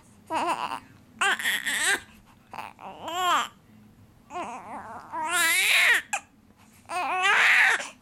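A small child crying: a run of about six high, wavering wails, each from half a second to nearly two seconds long, with short breaths between them.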